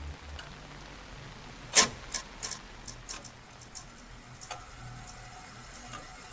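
A sharp click over a low hiss, followed by a string of fainter, irregular clicks and ticks.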